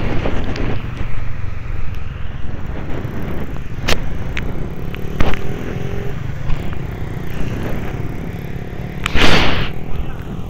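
Small motorcycle engine running at low speed on a wet road, with a few sharp knocks and a brief loud rush of noise about nine seconds in.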